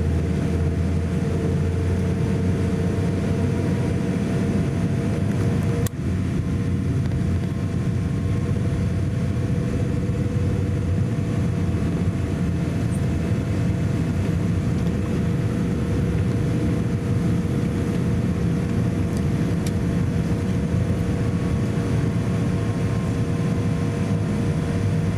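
Cabin noise of a Boeing 787-8 taxiing: its Rolls-Royce Trent 1000 engines run steadily at taxi power, a low rumble with a steady hum over it. A single sharp click comes about six seconds in.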